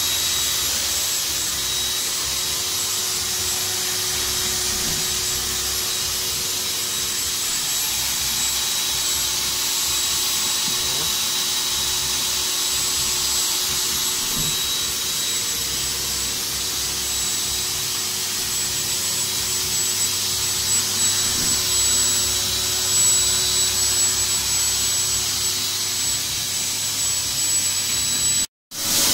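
Electric air pump running steadily, blowing air through a corrugated hose into the tube of an inflatable PVC boat: a constant hiss with a thin high whine. The sound drops out suddenly for a moment near the end.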